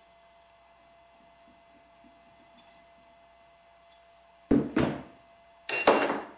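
Small loose metal parts from a dismantled arbor press clinking and clattering as they are set down on a wooden workbench: two short clatters about a second apart, near the end.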